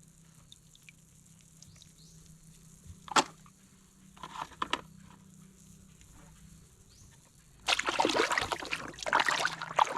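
Water sloshing and splashing as toys are washed, faint at first with a few small taps, then loud and continuous from near the end.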